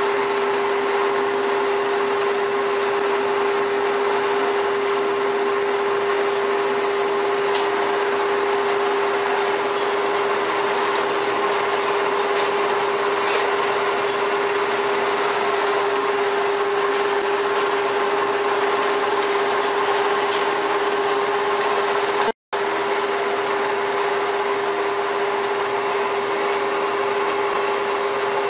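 Fishing vessel's engines and deck machinery running with a steady drone: a constant mid-pitched hum over hiss. It drops out for a split second about three-quarters of the way through.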